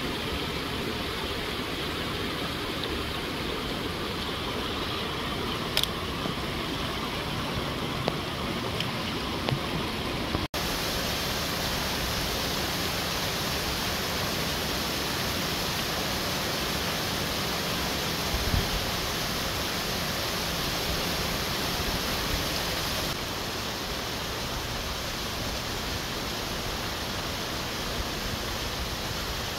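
Steady rush of a small waterfall and fast mountain stream splashing over rocks. A few small clicks come in the first ten seconds, the sound drops out for an instant about ten seconds in, and there is a low thump a little past halfway.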